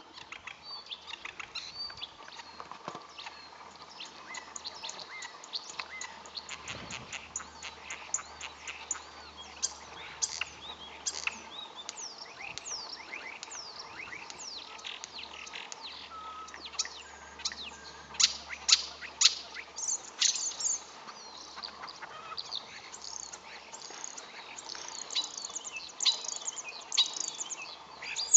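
Common (European) starling singing its courtship song: a long, rambling jumble of rapid whistles, clicks and squeaky notes sliding up and down, with louder phrases about two-thirds of the way through and again near the end.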